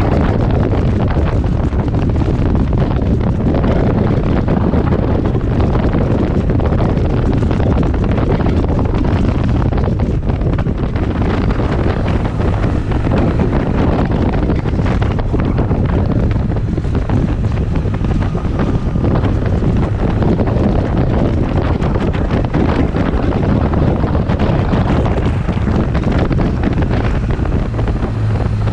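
Heavy wind rushing over the microphone, steady and loud, with the low drone of a BMW R 1200 GS motorcycle's boxer twin underneath.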